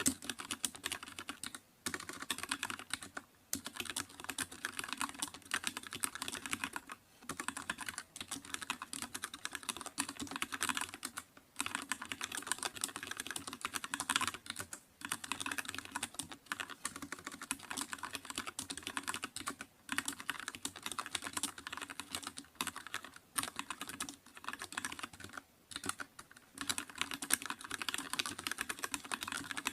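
Fast typing on a computer keyboard: a dense stream of keystroke clicks in runs of a few seconds, broken by brief pauses.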